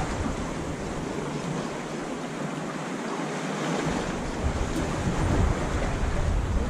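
Sea waves washing against shoreline rocks, a steady hiss of surf, with wind rumbling on the microphone that eases off for a couple of seconds about two seconds in.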